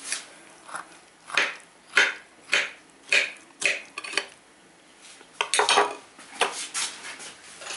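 Steel knife and fork clinking and scraping against a ceramic plate while cutting a layered salad, a run of sharp strokes about every half second, then a quick cluster of clicks past the middle and a few more near the end.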